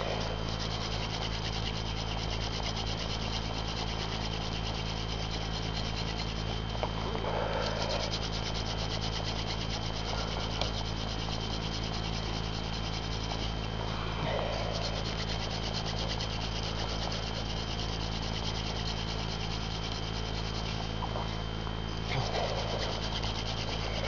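Hand drill fire-making: a mullein spindle spun between the palms, rubbing in a red oak hearth board, a steady dry friction with a rougher swell about every seven seconds.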